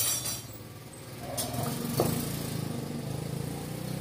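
An engine running steadily, growing a little louder after about a second, with a sharp knock about halfway through.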